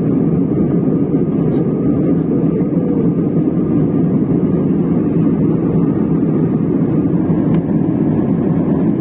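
Airliner cabin noise in flight: a steady, dense low hum of engines and rushing air, unchanging throughout.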